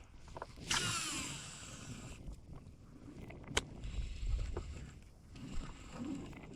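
Fishing reel in use from a kayak: a short whir of line running off the spool about a second in, falling in pitch as it slows, then a single sharp click a little past the middle, with low knocks against the hull.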